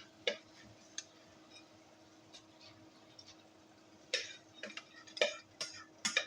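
A utensil clinking and scraping against a pot while rice is stirred and fried: a couple of sharp clicks at the start, a quieter stretch, then a quicker run of scrapes about two a second from around four seconds in, over a faint steady hum.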